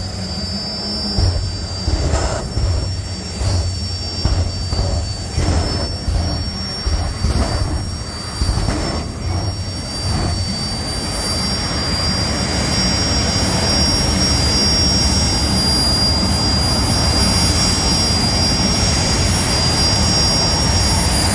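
Two jet dragsters' turbine engines running at the start line with a high, steady whine. For about the first ten seconds they pop their afterburners in repeated blasts, about two a second. After that the engines settle into an even jet noise that slowly grows louder.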